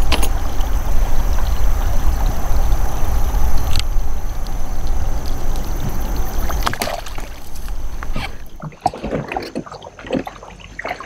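Water sloshing and trickling at the side of a kayak as a hand works in the water, over a steady low rumble that drops away about two-thirds of the way through. Scattered small splashes follow near the end.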